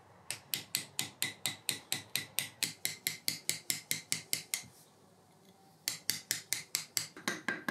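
Mallet striking a stone-carving chisel in quick, even taps, about five a second, as the chisel cuts into stone. The tapping pauses for about a second past the midpoint, then resumes.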